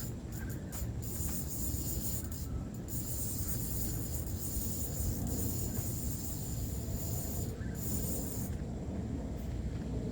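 Steady low outdoor rumble with a high, insect-like buzz that drops out a few times.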